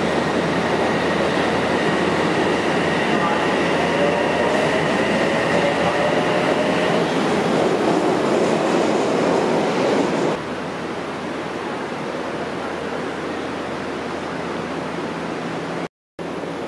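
Odakyu Line electric commuter train at the platform, running loud, with a motor whine rising in pitch as it gets under way. About ten seconds in, the train noise drops to a steadier, quieter station hum.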